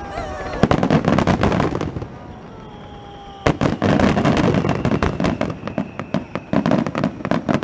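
Aerial fireworks shells bursting in quick succession: a run of rapid bangs and crackles, a lull of about a second and a half, then a sharp bang about three and a half seconds in followed by a long, dense run of bangs and crackling.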